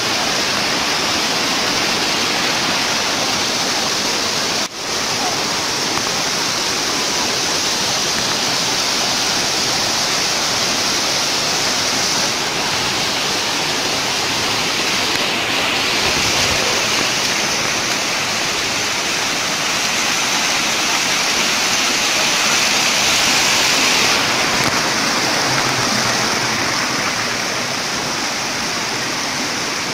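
Waterfall cascades rushing steadily over tiered rock steps. The rush shifts in tone a few times and dips briefly about five seconds in.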